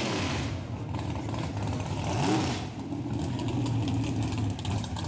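Open-exhaust drag racing car's engine running at low speed as it rolls past, with one quick throttle blip about two seconds in.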